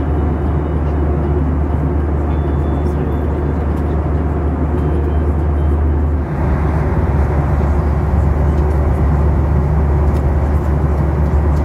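Steady cabin noise of a Boeing 737 in cruise: a low rumble of engines and airflow with a hiss above it. Its tone shifts slightly about six seconds in.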